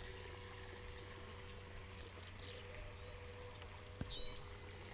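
Faint, steady whine of a small RC jet boat's electric motor running out on the water, with birds chirping; a click and a short high bird call about four seconds in are the loudest moment.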